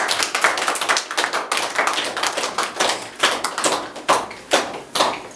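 Rapid, irregular sharp taps and knocks, several a second.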